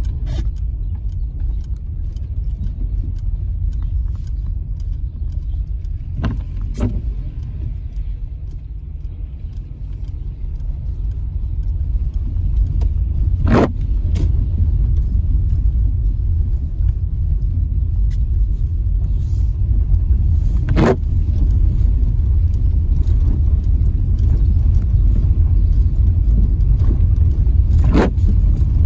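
A car driving slowly over cobblestones: a steady low rumble of tyres on the stones that grows louder about halfway through, with a few sharp knocks along the way.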